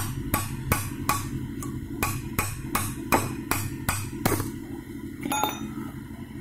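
Hammer blows on a screwdriver set through the injector nozzle hole of a Toyota 2L diesel cylinder head: about ten sharp metal-on-metal strikes, roughly three a second, knocking the swirl chamber out of the head. The blows stop a little past four seconds in, and a single ringing metallic clink follows about a second later.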